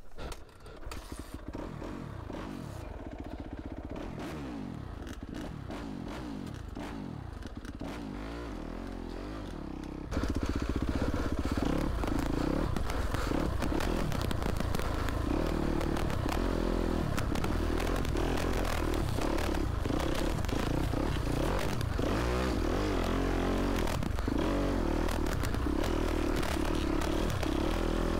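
Yamaha YZ250F dirt bike's single-cylinder four-stroke engine running with its pitch rising and falling as it is revved. About ten seconds in the sound jumps suddenly louder and stays loud and dense as the bike is ridden along the trail, picked up by a helmet-mounted microphone set up poorly.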